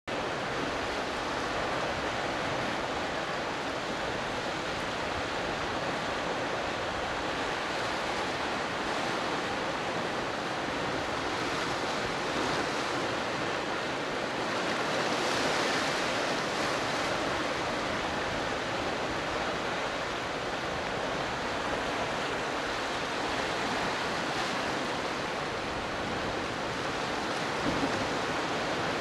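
Pacific surf washing in a narrow rocky cove: a steady rush of waves breaking and draining over rock, swelling a little about halfway through and again near the end.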